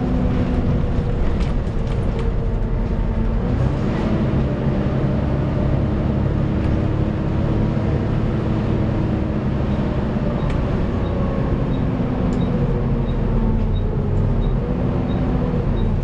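A Volvo B7TL double-decker bus's diesel engine and drivetrain under way, heard inside the upper deck. The engine note rises as the bus pulls and shifts in pitch through gear changes, with the whine that enthusiasts call a "hoover". A faint steady ticking runs through the second half, a little under two ticks a second.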